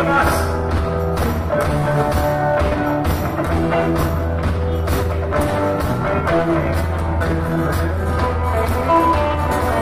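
Live band playing an Irish reel on acoustic and electric guitars, with a quick, steady beat.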